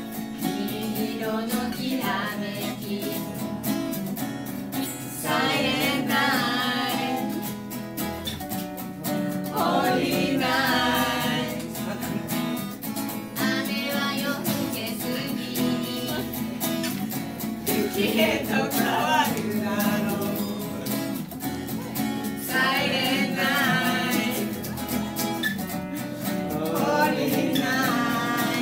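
A woman singing a song in phrases, accompanied by an electric guitar played through a small amplifier and an acoustic guitar.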